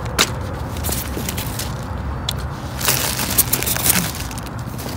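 Clear plastic bags crinkling and rustling as a gloved hand digs through the trash, with scattered crackles that come thickest about three seconds in, over a steady low rumble.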